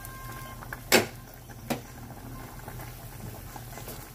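Pot of vegetable soup boiling on a gas stove, a steady bubbling and simmer, with a sharp click about a second in and a fainter one shortly after.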